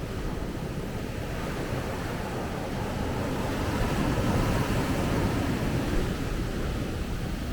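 Sea waves breaking on a beach, a steady wash of surf that swells to a louder break about halfway through and then eases.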